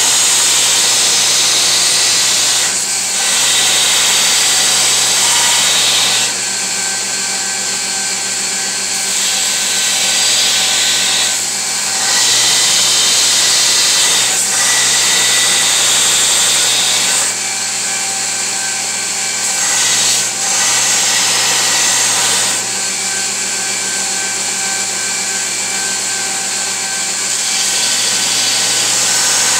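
Belt grinder running, its abrasive belt grinding the steel blank of a chef's knife to shape. The harsh, hissing grind swells and eases every few seconds as the blade is pressed on and eased off, over the motor's steady hum.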